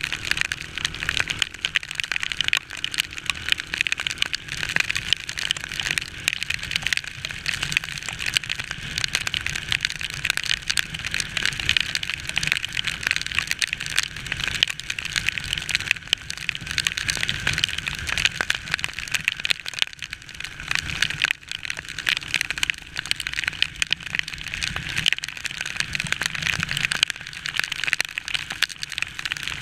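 Heavy rain crackling close on the microphone of a moving motorcycle, a dense patter of many tiny drop hits. A low rumble of the motorcycle's ride on the wet road runs underneath.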